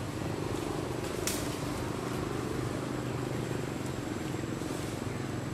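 Steady low hum of a running motor, with a thin high whine held throughout and a single sharp click about a second in.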